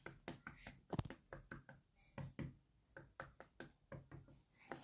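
Light, irregular knocks and taps on a bedroom wall, one a little louder about a second in, testing a spot that sounds hollow and may be a false wall.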